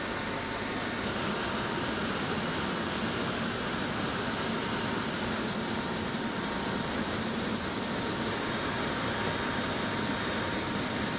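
Steady engine drone and rushing air inside the cabin of an HC-130J Combat King II in flight, with its door open. The level holds even throughout, a dense hiss with a few faint fixed tones.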